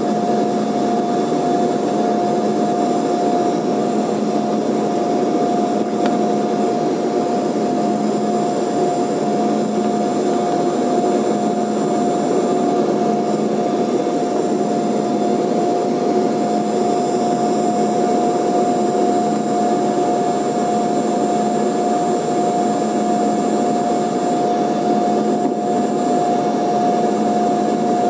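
Embraer 145's rear-mounted Rolls-Royce AE3007 turbofan heard from inside the cabin on final approach: a steady roar with a constant high whine.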